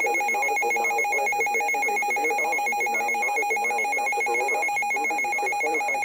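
Weather alert radio's electronic alarm sounding for an incoming Special Marine Warning: a loud, rapidly warbling two-tone beep, held steady.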